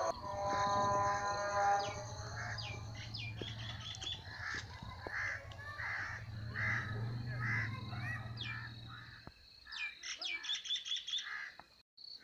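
Birds chirping and calling over and over in short clipped notes, some with quick downward sweeps. Beneath them run a steady high insect-like trill and a low steady hum that cuts off about nine seconds in.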